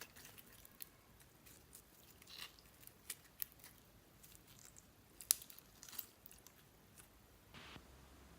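Slime being squished and mixed, making a run of sticky clicks and small pops, the sharpest about five seconds in, with a short squish near the end.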